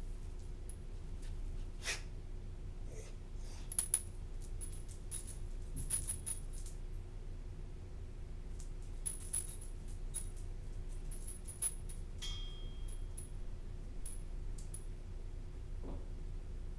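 A small animal shifting about in a wire pet pen: scattered light clicks and faint metallic jingling over a steady low hum. A brief high squeak about twelve seconds in.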